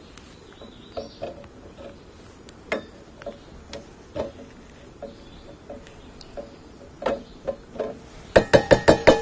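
Irregular light ticks and clicks, then near the end a rapid run of about eight loud, ringing metallic clinks from cookware being handled.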